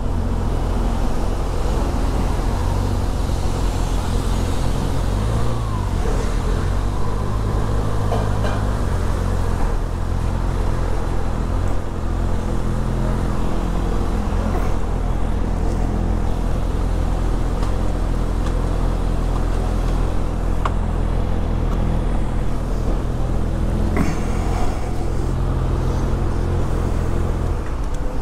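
Kawasaki Ninja ZX-6R's inline-four engine running at low revs, the pitch shifting briefly about five seconds in and then holding steady.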